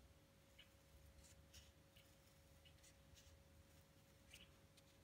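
Faint snips of scissors trimming an insole down to size: a string of soft, short cuts spread over a few seconds.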